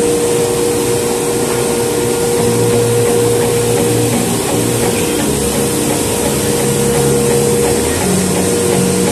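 Steady whir of a workshop machine, a loud even hiss with a constant hum-like tone, running throughout. Background music is underneath.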